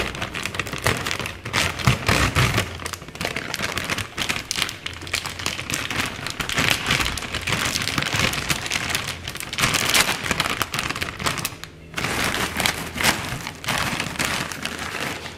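Plastic food bags crinkling and rustling as they are handled and pulled open, with a short break about twelve seconds in.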